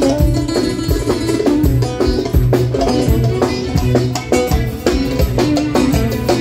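Live band playing an instrumental passage: an electric oud's melodic line over keyboards and a steady, driving drum and percussion beat.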